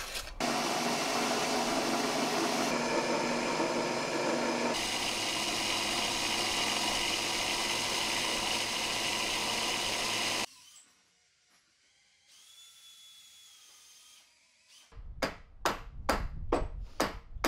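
A power tool runs steadily for about ten seconds and then cuts off suddenly. After a few quiet seconds comes a quick run of sharp hammer blows, about three a second, on a fastening backed by a steel bar held against the wooden hull.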